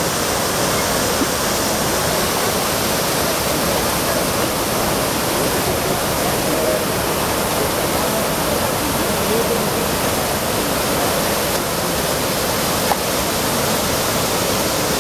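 Water of the Trevi Fountain's cascades pouring over the travertine rocks into the basin: a steady, even rush of falling water.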